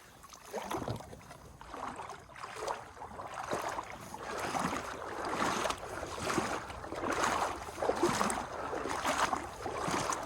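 Water swishing and sloshing in a steady rhythm of strokes, about one a second.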